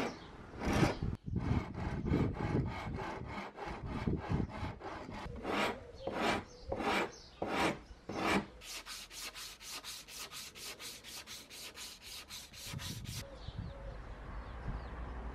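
Hand file rasping across the end of a wooden shovel handle in repeated strokes, uneven at first, then a fast even run of about five short strokes a second before it stops near the end.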